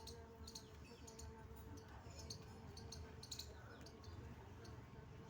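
Faint, irregular crisp crackles and clicks of clay crumbling apart, over a faint steady hum.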